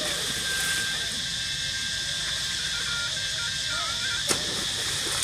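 Steady, high-pitched drone of a forest insect chorus, with a thin whistling tone that steps up and down in pitch, and one sharp click about four seconds in.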